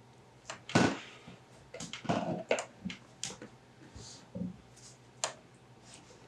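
Plastic water bottles being handled on a table: scattered light taps, crinkles and knocks of thin plastic, the loudest about a second in and another sharp one about five seconds in.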